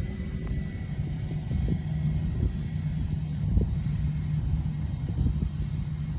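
Steady low rumble of a jet aircraft's engines heard at a distance across the airfield, with a faint even hum running through it.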